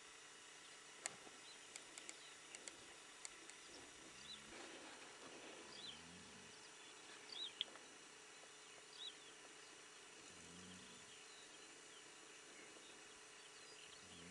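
Faint outdoor background with several short high chirps a second or two apart, the loudest about halfway through, and a few sharp clicks in the first few seconds.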